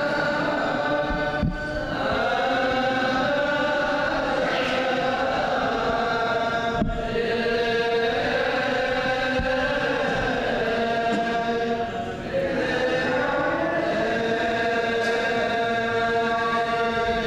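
Clergy chanting the Ge'ez (Ethiopic) Divine Liturgy together in long held notes that glide slowly in pitch, with short breaks between phrases about a second and a half in and about twelve seconds in.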